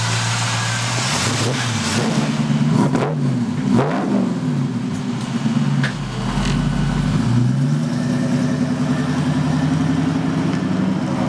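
Chevy 350 small-block V8 running through headers and Borla stainless-steel mufflers, revved twice about three to four seconds in. Near the middle it drops back and then picks up and runs steadily as the truck pulls away.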